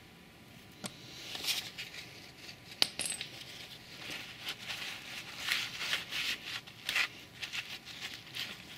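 Small handling noises from gloved hands, the plastic sealant bottle and its filler tube at a tyre's open valve stem: a sharp click a little under three seconds in, then scattered brief rustles and scuffs.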